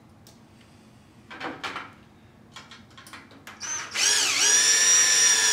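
DeWalt 18V cordless drill driving a self-tapping metal screw into the sheet-metal fixture housing: about four seconds in the motor starts up with a loud whine, dips in pitch briefly, then holds steady. A few light handling knocks come before it.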